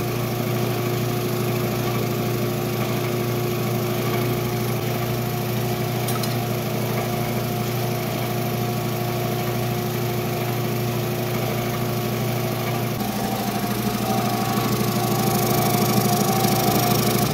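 Belt-driven twin-cylinder air compressor pump running steadily during its break-in, pumping straight out to atmosphere, together with the four-stroke generator that powers its motor. The sound grows slightly louder for the last few seconds, then cuts off abruptly.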